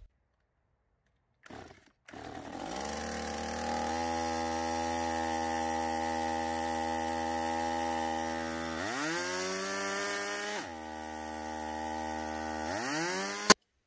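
Stihl MS 170 two-stroke chainsaw engine starts about two seconds in and runs at idle, then is revved up twice with the throttle, dropping back between. It cuts off abruptly near the end. The idle is too fast, a sign that the carburettor is hard to set.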